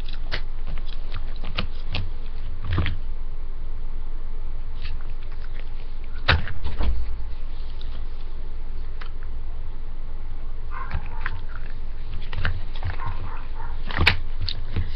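Plastic phone cases being handled and set down, giving scattered clicks and knocks, the loudest a little past six seconds in and near the end, over a steady low hum.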